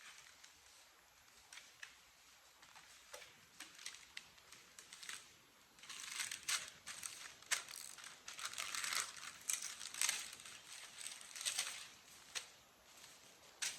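Soft rustling and crinkling with scattered light clicks, as of small objects or packaging being handled. It is busiest in the middle stretch.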